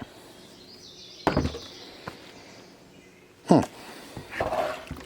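Handling noise while working on a chainsaw: a single knock about a second in and a small click after it, followed near the end by a short grunt and the start of speech.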